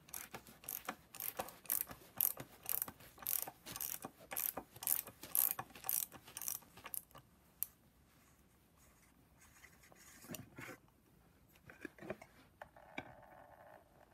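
Ratchet wrench clicking in quick, even strokes as it turns an oil filter cap wrench to unscrew the cap from a BMW N54 oil filter housing. The clicking stops about seven seconds in, followed by a few faint knocks.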